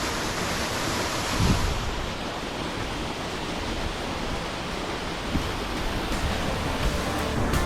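Waterfall: a steady rush of falling, cascading water.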